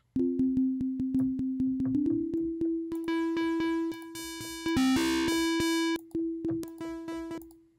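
Sine-wave synth tone from Ableton's Wavetable, played as quickly repeated notes through the Amp guitar-amp emulation effect. It starts almost pure, then from about three seconds in turns buzzy and distorted with many added overtones, heaviest around the middle and easing off near the end.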